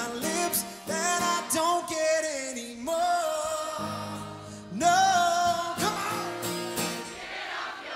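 Live country band playing with a singer holding long sung lines over guitars, with crowd cheering starting to swell near the end.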